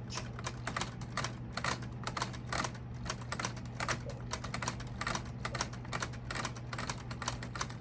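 Keys of a plastic LEGO typewriter being pressed one after another, the key levers and type hammers clacking in a steady run of clicks, about four to five a second.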